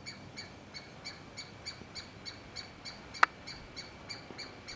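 A bird, species unidentified, calling on and on in a rapid, even string of short high notes, about three a second. One sharp click a little past three seconds in.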